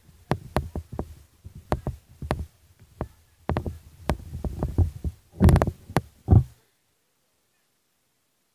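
Irregular thumps and clicks, some with a low thud under them and a denser cluster near the end; the sound then cuts out completely about six and a half seconds in.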